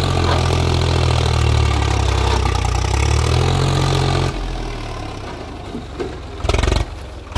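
Farm tractor's diesel engine running hard with a loud, deep drone, dropping away about four seconds in, then a short loud burst of engine noise near the end.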